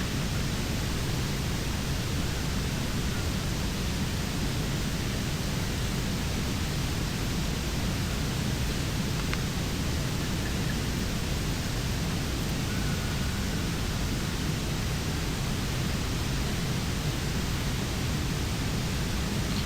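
Steady rushing of a flowing river, an even noise with no break.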